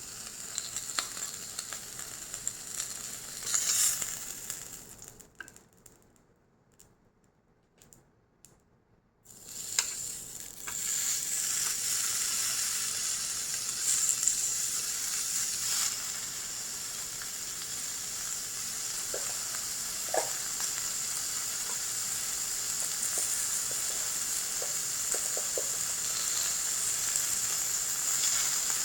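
Wagyu beef sizzling on a hot iron plate: a steady, crackling hiss that falls away almost to nothing about five seconds in, comes back after about four seconds and then holds steady and somewhat louder.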